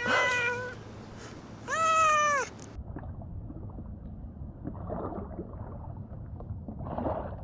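Two short, high meow-like calls, the second arching up then down. They are followed by a quieter stretch of low steady noise with two soft swishes.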